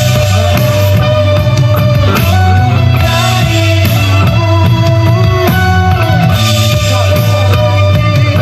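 Stratocaster electric guitar playing a melodic lead with sliding, bent notes over a rock backing of drums and bass.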